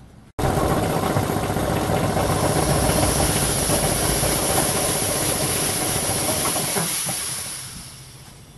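Small belt-driven air compressor with a half-horsepower McColl electric motor running, with a loud steady hiss of air over the hum of motor and pump. The sound starts suddenly and dies away from about seven seconds in.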